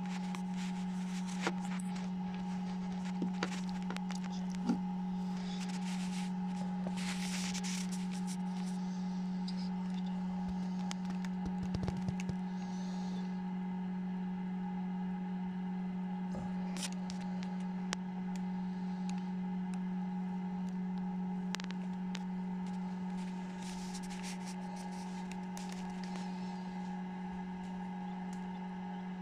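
Steady low hum of an incubator's running fan motor, with a few scattered light clicks and scrapes.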